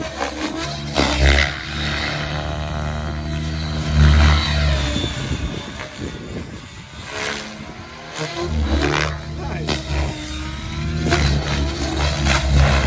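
Align T-Rex 700X electric RC helicopter in aerobatic flight: rotor blades whooshing and the electric motor whining, the pitch gliding up and down several times as the helicopter manoeuvres.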